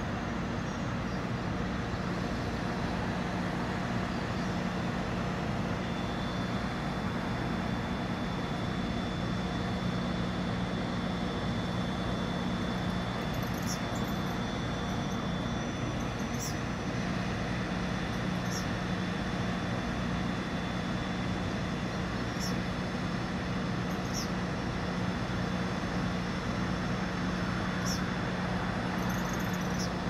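Steady drone of a crane's engine running while it lowers a rooftop HVAC unit on its hook. Short high chirps come every couple of seconds in the second half.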